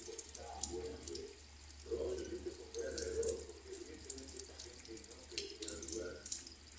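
Rain falling, with drops pattering and dripping irregularly over a low steady rumble.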